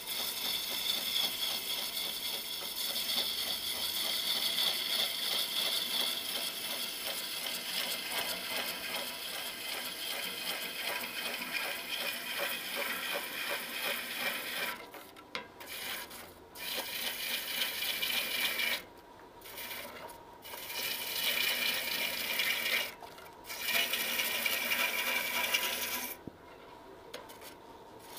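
A hand-held turning tool cutting into a large wooden vessel spinning on a lathe: a steady scraping hiss of shavings coming off the wood. In the second half the cut stops and restarts several times as the tool comes off the wood, with a longer pause near the end.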